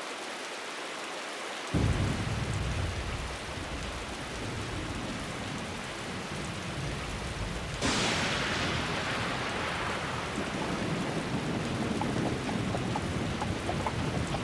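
Steady heavy rain with thunder: a sudden low rumble comes in about two seconds in, and a sharper thunderclap strikes about eight seconds in, then fades away over a few seconds. Faint clicks come through the rain near the end.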